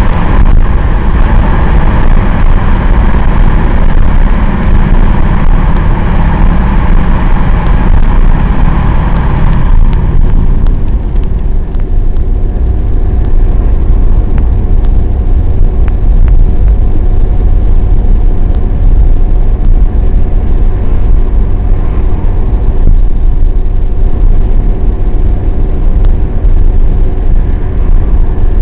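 Mercedes-Benz 190D 2.5's five-cylinder OM602 diesel running at cruising speed with tyre and road noise, heard from inside the cabin. The noise is louder and fuller while the car is in the tunnel, then drops about ten seconds in as it comes out into the open.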